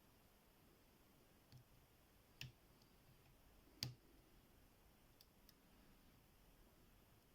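A lock pick working the pins of a small 30 mm Bastion padlock, giving about six faint, scattered clicks, the loudest about four seconds in.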